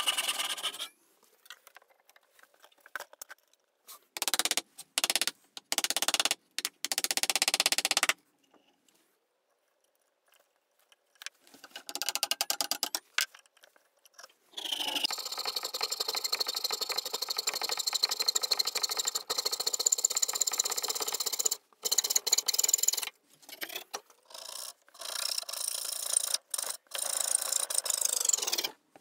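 Hand sawing of a wooden saw-handle blank: a brief run of handsaw strokes at the start, then short bursts of coping-saw strokes, and from about halfway a long, fast run of coping-saw strokes with a ringing metallic edge from the tensioned blade.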